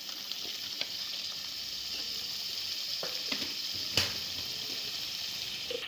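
Chicken gizzards in masala sizzling steadily as they fry in a pan, with a few knocks of the wooden stirring spoon against the pan; the loudest knock comes about four seconds in. The masala is being fried down until its raw taste cooks off.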